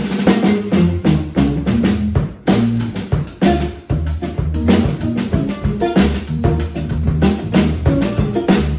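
Funk band groove: drum kit playing snare, rimshot and bass drum hits over a running electric bass line, with two short stops in the groove about two and a half and four seconds in.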